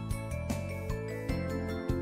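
Instrumental background music: steady held notes over a bass line.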